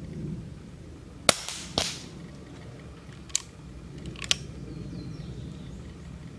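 Daystate Red Wolf HP Hilite PCP air rifle firing one shot: a sharp crack, then a second, softer crack about half a second later. About two and three seconds after the shot come two light clicks, a second apart, as the action is worked to load the next pellet.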